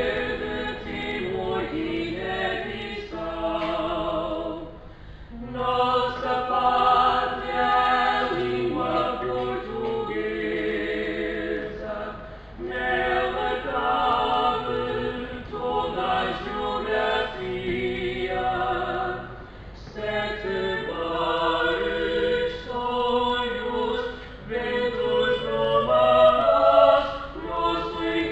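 Mixed vocal quartet, two men and two women, singing a hymn a cappella in four-part harmony, in long phrases with short breaks between them.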